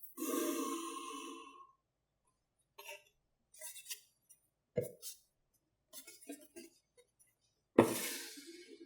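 A tumbler cup being handled: a scrape or rub of about a second and a half, then a run of light taps and clinks. A sharper, louder knock comes near the end and rings away briefly.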